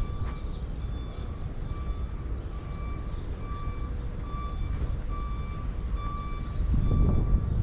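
A reversing alarm beeping steadily about twice a second over a low diesel-machinery rumble; the rumble swells near the end.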